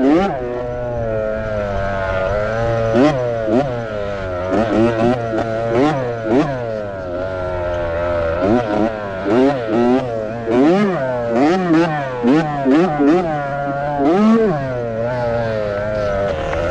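Kids' motocross bike engine revving up and down over and over, its pitch rising and falling quickly as the throttle is worked, with brief knocks and clatters mixed in.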